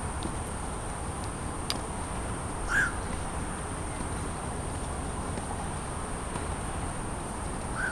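Night city ambience by a river: a steady wash of distant traffic noise under a thin, steady high-pitched whine. A short animal call, likely a bird, sounds about three seconds in and again briefly near the end, with a faint click just before the first.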